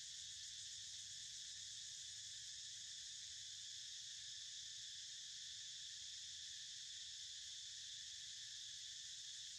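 Steady, high-pitched insect chorus that does not change.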